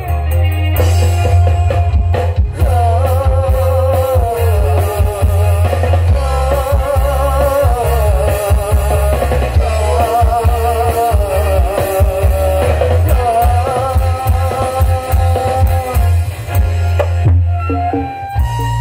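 Music played loud through a stacked sound-system rig under test, with a heavy, constant bass and a wavering melody line. It breaks off briefly near the end as another passage starts.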